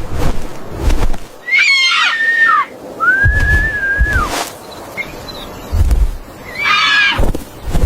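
High whistle-like calls: a gliding call about one and a half seconds in, a long held note around three to four seconds, and a shorter call near the end, over bursts of low rumbling.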